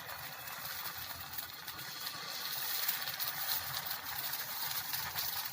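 Adai batter of rice and greens sizzling on a hot dosa griddle greased with sesame oil: a steady hiss full of fine crackles that grows louder about halfway through.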